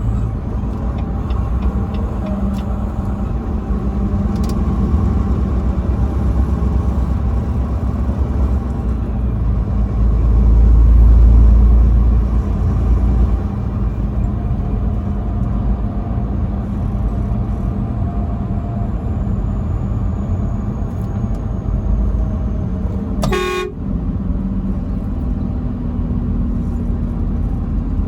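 Truck on the highway: steady engine and road rumble that swells louder for a couple of seconds midway, with one very short horn toot near the end.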